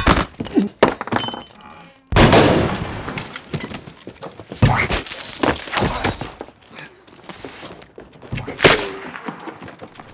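A series of sharp crashes and thuds. The loudest comes about two seconds in and dies away slowly. Others follow around the middle, and one more strong hit comes near the end.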